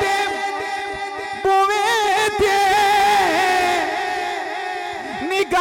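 A man singing a Punjabi devotional kalam into a microphone. He holds long notes with a slightly wavering pitch, breaking briefly about a second and a half in.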